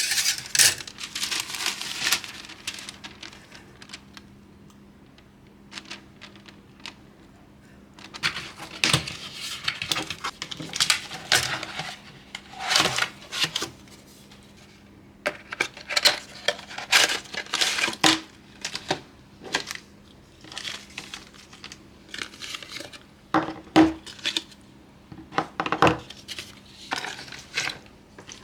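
Packaging crinkling and rustling in irregular bursts, with light clinks and knocks, as a PC case is unboxed and handled.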